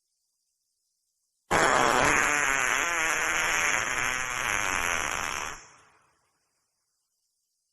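A long wet fart, starting abruptly about a second and a half in with a rapid fluttering texture, lasting about four seconds before fading out.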